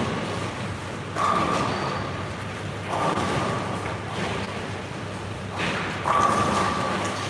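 Ten-pin bowling alley in play: balls rolling down the lanes and pins crashing, with several sudden crashes that fade away, the loudest about a second in and again about six seconds in.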